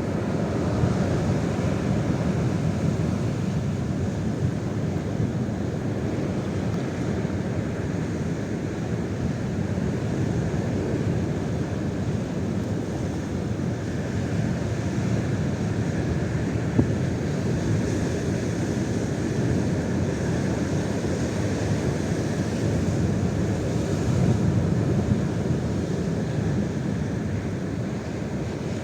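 Strong gusty wind buffeting the microphone: a loud, steady rushing noise, heaviest in the low end, that swells in a gust near the end.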